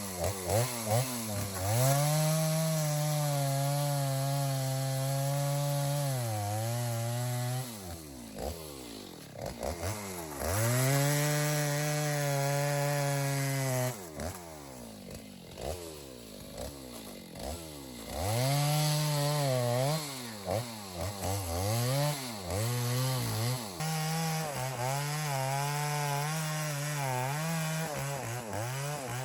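Two-stroke chainsaw cutting into a dead ash trunk: several long stretches at steady high revs under load, with the engine falling back and revved up and down between the cuts.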